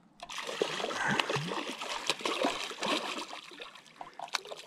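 Hooked salmon thrashing at the water's surface, a busy run of splashes that starts about a quarter second in and keeps going.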